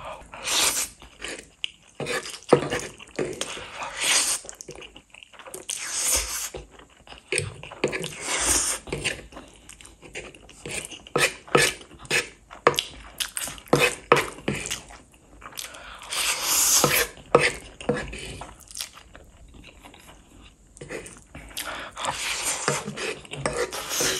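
Close-miked eating of spicy Korean instant noodles: wet chewing and mouth clicks throughout, with repeated noisy slurps, each lasting up to about a second.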